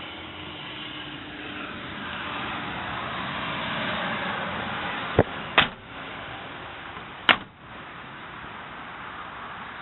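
Toyota Tacoma Access Cab doors being shut: a click and a solid slam about five and a half seconds in, then a second slam under two seconds later, over a steady background hiss.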